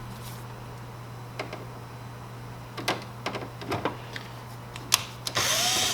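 Light clicks of a screwdriver and plastic parts being handled, then near the end a half-second whir of a power screwdriver backing out the screw that holds the printer's fuser unit.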